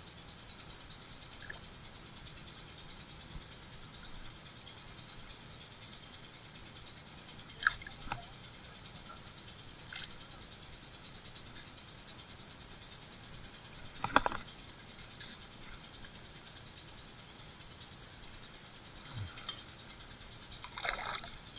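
Scattered short rattles and clicks from small fish being handled in a mesh landing net, over a faint steady background. The sharpest click comes about fourteen seconds in, and a cluster of rattles comes near the end.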